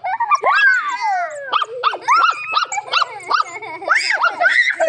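A dog whining and yelping: one long falling whine about half a second in, then a quick run of short, high yelps.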